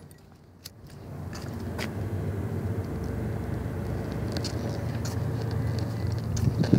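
A few sharp clicks from a metal flip-top lighter being opened and struck to light a cigarette, over a steady low rumble that fades in about a second in.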